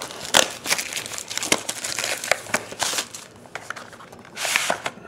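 Plastic wrapping crinkling and tearing as a sealed football trading-card box is opened by hand: an irregular run of sharp crackles and rustles, with a longer rustle near the end.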